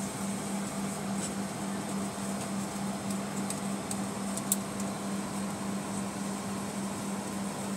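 Steady airliner cabin hum of a Boeing 757 at the gate: the air-conditioning and ventilation blowing, with a constant low tone underneath. A few faint clicks, one sharper about four and a half seconds in.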